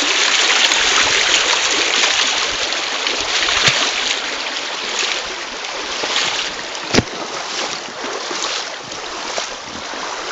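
Shallow stream rushing steadily over and around volcanic rocks, a little louder in the first half. A sharp click about seven seconds in.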